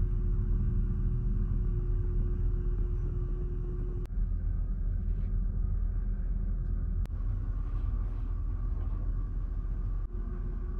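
Steady low rumble and hum of the ferry Ogasawara Maru's engines and hull while under way. The sound drops out briefly three times, about three seconds apart.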